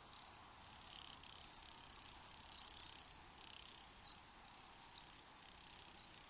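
Crickets trilling faintly in bouts of about a second that start and stop, over a low steady background hiss.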